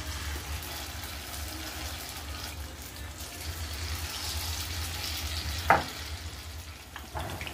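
Paneer cubes coated in cornflour-and-maida batter frying in hot oil in a kadhai: a steady sizzle and bubbling over a low hum. A single sharp knock comes about two-thirds of the way through.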